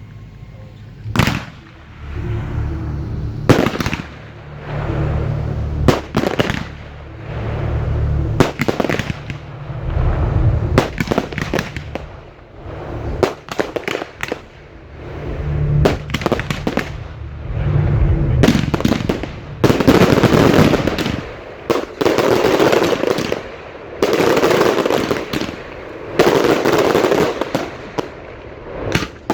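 Fireworks display heard from the firing site: many sharp bangs from shells launching and bursting, between longer stretches of loud crackling and rushing noise that are loudest in the second half.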